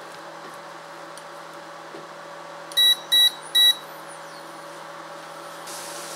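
Electric glass-top cooktop's touch controls beeping three times in quick succession, as power settings are pressed to heat the pot. Under it runs a low, steady hum.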